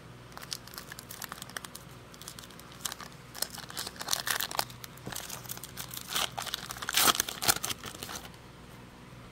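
Foil wrapper of a Panini Prizm basketball bonus pack crinkling and tearing as it is worked open by hand, the loudest rips about seven seconds in; the crackling stops near the end.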